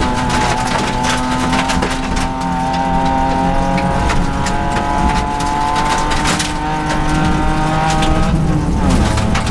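Rally car engine running hard, heard from inside the cockpit, over the rumble of tyres on gravel, with loose stones clicking against the car's underside. The engine note drops and picks up again near the end.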